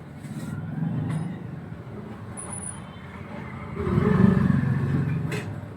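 Road traffic: a passing motor vehicle's engine rumble grows louder about four seconds in, then fades.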